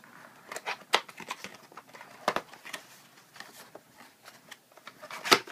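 Small cardboard product box being handled and slid open: card rubbing and scraping against card, with a few sharp clicks and taps, the loudest near the end.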